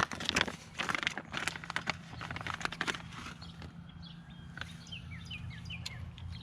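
A run of clicks and rattles in the first three seconds, as of the USB charger and its packaging being handled, then quieter. Short falling bird chirps repeat in the background.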